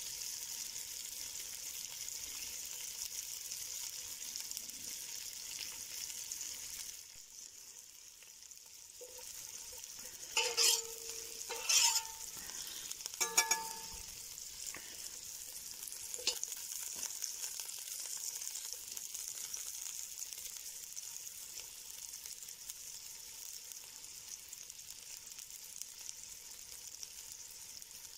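Sliced onions frying in fat in a cast iron Dutch pot, a steady sizzle. About ten to fourteen seconds in come three short, louder sounds, each ringing briefly.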